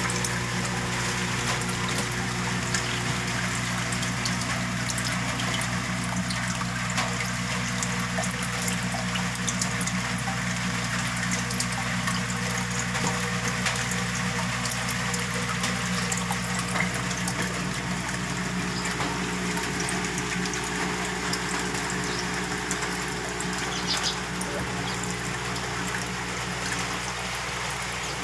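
Saltwater aquarium's water pump running steadily with a low hum, and water circulating and bubbling at the surface.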